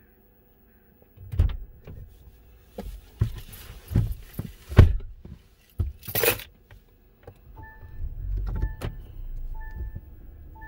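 Inside a car: a series of thumps and knocks and a short rustle, then the engine starts and runs with a steady low rumble while a dashboard warning chime beeps over and over, about once every 0.7 seconds.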